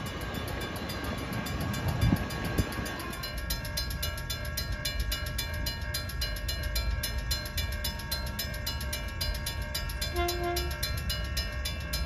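Grade-crossing warning bell ringing in an even, rhythmic pattern while an NCTD Sprinter diesel multiple unit approaches with a low rumble. Before a cut about three seconds in, there is a low rumble with a few knocks as a train nears another crossing.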